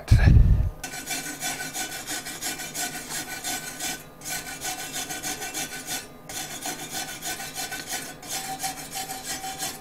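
A flat steel file scraping weld spatter off a steel plate in four long passes of quick rasping strokes with short breaks between them, after a dull thump at the very start.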